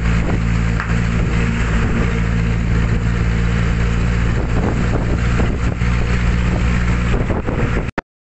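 Engine of a moving road vehicle running steadily, heard from inside the cabin with road and wind noise through the open window. The sound cuts out completely for a split second near the end.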